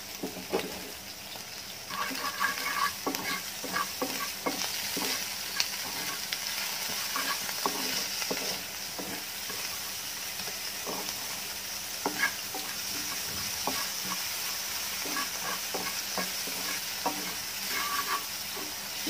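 Shrimp and onions frying in butter in a kadai whose nonstick coating is worn off, sizzling steadily while a wooden spatula stirs them, with frequent scrapes and taps of the spatula against the pan.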